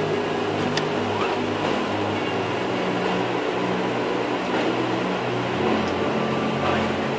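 Jet airliner cabin noise during the takeoff roll and liftoff: a steady, even engine roar heard from inside the cabin.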